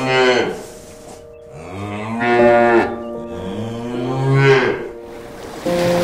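Cow mooing: the end of one moo, then two long moos about half a second apart, each dropping in pitch as it ends.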